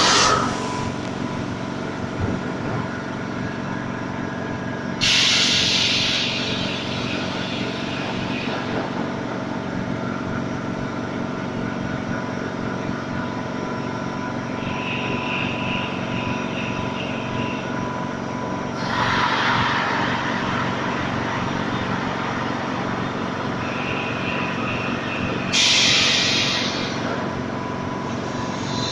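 Air compressor running steadily with a constant motor hum, interrupted four times by short bursts of air hissing.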